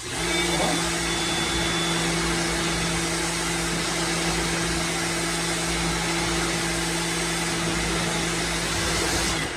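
Lavor Fast Plus 130 electric pressure washer spraying with the trigger held: its motor hums steadily under the loud hiss of a fan-shaped water jet. The spray starts at once and cuts off shortly before the end.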